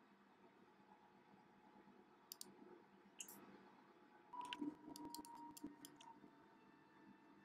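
Faint clicks of a computer mouse and keyboard over a low steady hum: a couple of clicks a little past two seconds in, one just after three seconds, then a quick run of several between about four and a half and six seconds.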